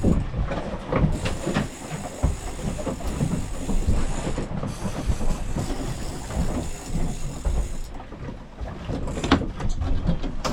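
Fishing boat at sea: a steady rumbling noise with a high hiss and scattered knocks.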